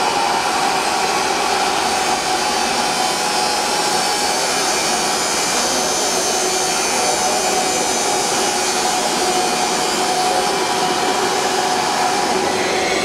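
Large electric water pump sets in a pumping station running steadily: an even whir with a few constant whining tones that does not change.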